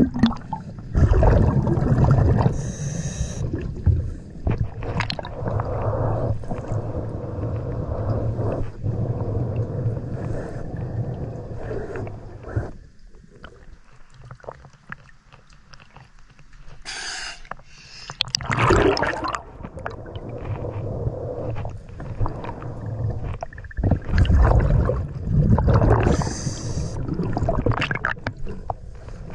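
Scuba diver's regulator breathing underwater: swelling rumbles and gurgles of exhaled bubbles every few seconds, with a quieter pause partway through.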